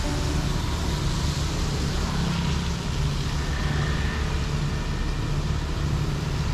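Steady city street traffic noise: engines running and tyres on the road, with a low rumble throughout.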